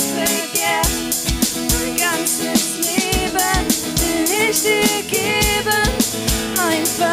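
Pop-style worship song with a full band: a drum kit keeps a steady kick-and-snare beat under a gliding melodic lead line.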